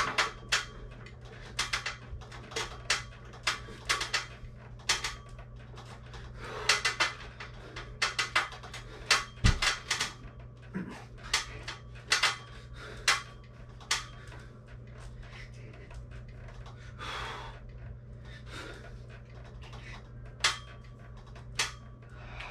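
Metal power tower clicking and knocking at its joints under a man doing pull-ups, in irregular clusters that thin out after about thirteen seconds, with hard breaths between. A steady low hum runs underneath.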